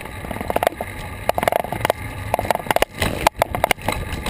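Road and wind noise from an action camera mounted on a moving bicycle, with a low rumble and irregular clicks and knocks as the bike rolls over the pavement.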